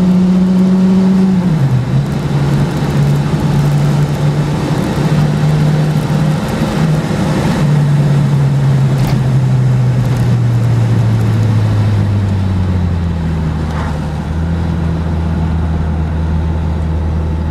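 1997 VW Jetta GL's 2.0-litre four-cylinder engine heard from inside the cabin under hard throttle at high revs. Its pitch drops sharply about a second and a half in, as the automatic gearbox shifts up. After that the engine note slides steadily lower as the revs fall and the car slows.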